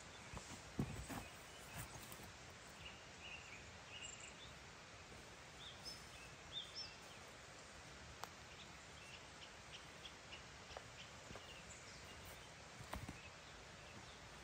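Quiet forest ambience: a faint steady hiss with a few brief, high, thin chirps around the middle and occasional small clicks and rustles.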